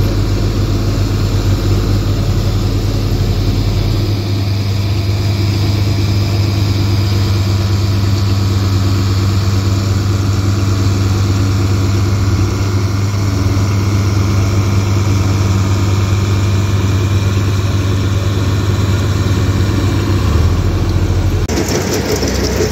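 Tractor engine idling steadily close by, its deep low hum easing about four seconds in. Near the end it gives way suddenly to a louder rushing hiss as chopped sorghum-sudangrass forage pours through the harvesting machinery.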